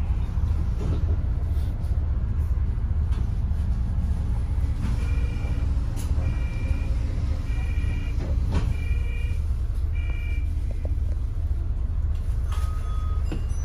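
Steady low engine and road rumble of a double-decker bus heard from its upper deck. In the middle comes a run of five evenly spaced electronic beeps, about one a second, and a shorter single beep near the end.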